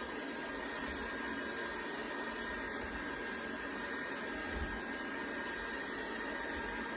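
DeenKee DK700 robot vacuum running in edge-cleaning mode: a steady motor whine over an even hiss.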